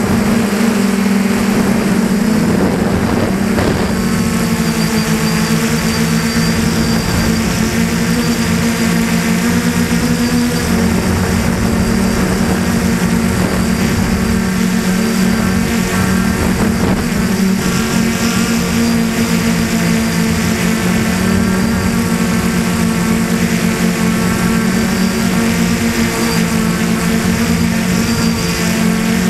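Brushless motors and propellers of a DJI Flamewheel 450 quadcopter in flight, heard close up from a camera on its frame: a loud, steady buzzing hum of several close pitches over a hiss. The pitches shift slightly about ten seconds in as the motor speeds change.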